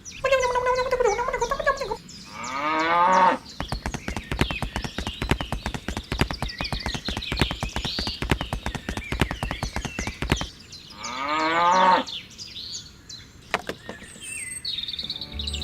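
Cows mooing, three drawn-out calls, two of them rising in pitch, with birds chirping faintly. Between the second and third moo there is a long run of rapid clicking.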